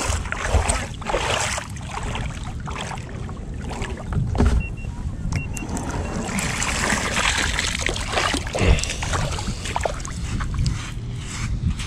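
ProBoat SonicWake 36" RC deep-V boat running on the water: a continuous rush of water and hull noise with repeated short surges. A few short high-pitched tones sound about five seconds in.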